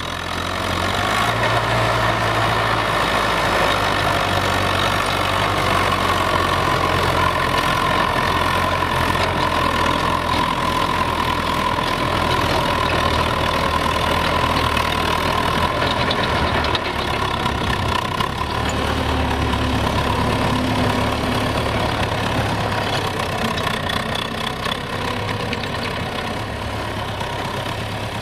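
Belarus MTZ-82 tractor's four-cylinder diesel engine running steadily under load while pulling a plough through frozen, snow-covered soil.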